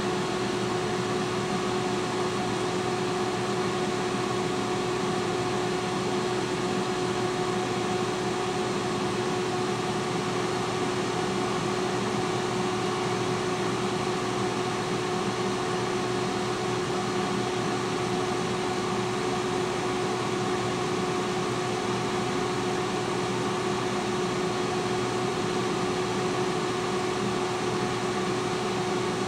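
T-fal electric air fryer running: a steady fan whir with a constant low hum note.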